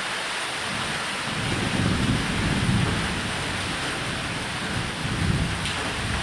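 Steady rain falling on a roof, with low rolls of thunder rumbling beneath it: one swells about a second and a half in, and a shorter one comes near the end.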